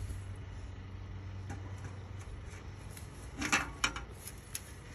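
Aluminum fence section being handled, giving a few light metallic clicks, two sharper ones about three and a half seconds in, over a steady low hum.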